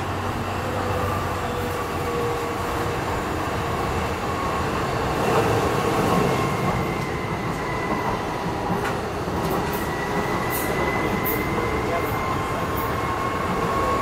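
Interior running noise of a Docklands Light Railway B07 stock train at speed: a steady rumble of wheels on rail with a faint steady whine, and a few sharp clicks in the second half.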